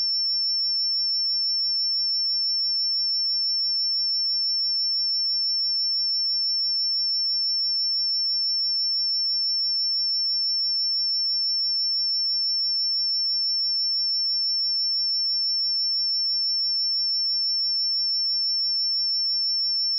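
A pure 5403 Hz sine-wave test tone, a single high-pitched steady tone held at constant level with no other sound.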